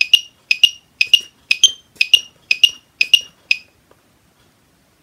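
Built-in metronome of a Lekato TM-25 clip-on tuner beeping at 120 bpm in a swung subdivision pattern: pairs of short, high electronic beeps, one pair about every half second. The beeping stops about three and a half seconds in.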